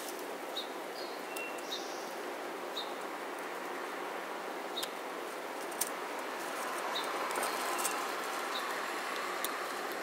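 Short, sharp bird chirps from small feeder birds, about one a second at first and then more sparsely, over a steady background noise.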